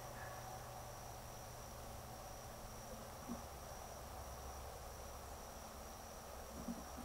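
Faint, steady high-pitched trill of night insects such as crickets, with two soft low thuds about three and a half seconds in and near the end.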